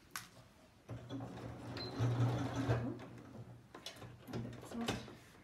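Electric domestic sewing machine stitching through thick denim bias-binding strips in two short runs, starting about a second in, with a sharp click just before.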